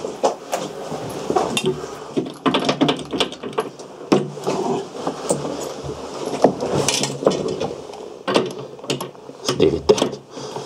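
Irregular knocking, clicking and metallic rattling as a loose toilet seat and its mounting hardware are worked at by hand.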